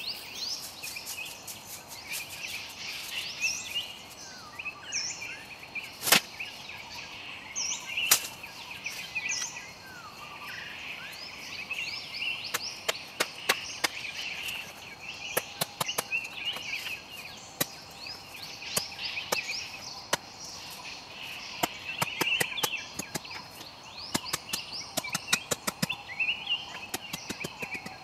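Birds chirping and trilling without a break. Over it come two sharp knocks about six and eight seconds in, then a long run of quick wooden clacks and chops through the second half, from bamboo poles being handled and cut with a machete.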